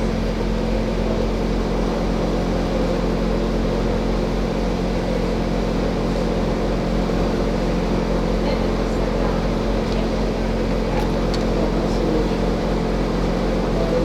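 A steady mechanical hum from running machinery, unchanging throughout, with a low buzz beneath it and a couple of faint ticks about eleven seconds in.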